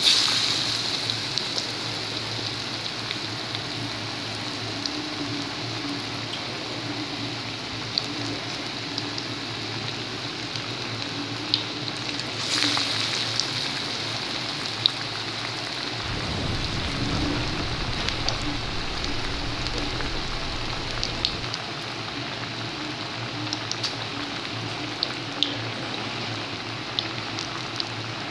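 Falafel patties deep-frying in hot oil: a steady sizzle with scattered pops and crackles. It is loudest right at the start, with another surge about twelve seconds in.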